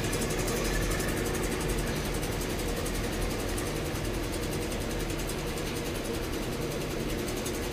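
A steady mechanical hum with a few constant tones and a low drone underneath, even throughout with no distinct knocks or pauses.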